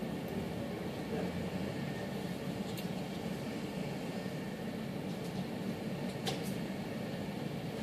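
Steady room hum with a few faint clicks.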